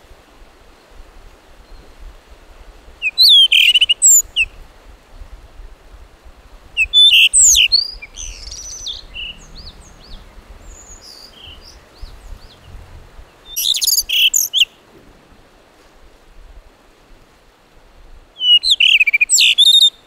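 Male blue rock thrush singing: four short, warbling phrases of quick rising and falling whistles, spaced several seconds apart, over a faint low rumble.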